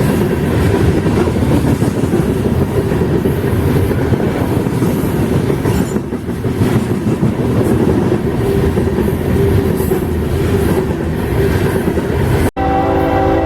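A freight train rolling past, its wheels clicking steadily over the rail joints. About twelve and a half seconds in, the sound cuts abruptly to a locomotive air horn sounding a steady chord of several notes.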